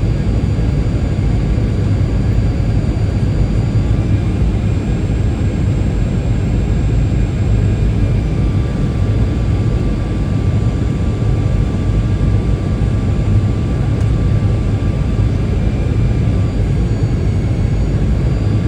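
Boeing 737-800 jet in flight on its approach: a steady low rumble with thin whining engine tones above it, the tones shifting slightly in pitch a few times.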